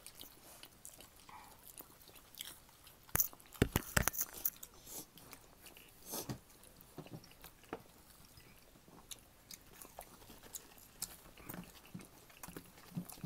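People biting and chewing breaded chicken nuggets, with scattered sharp snaps and clicks. The loudest cluster comes about three to four seconds in.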